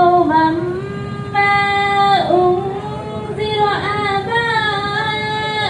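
A girl's voice reciting the Quran in the melodic chanted style, holding long drawn-out notes that bend and dip in ornamented turns.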